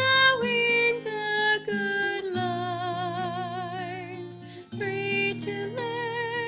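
A woman singing a slow hymn, accompanying herself on a strummed acoustic guitar. In the middle she holds one long note with a wide vibrato, then the guitar and voice briefly drop before the next phrase begins.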